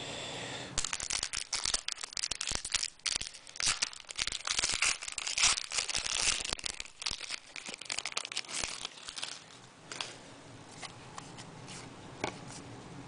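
Foil wrapper of a trading-card pack being torn open and crinkled: a dense, crackling run of sharp crinkles that thins to a few scattered ones after about nine seconds.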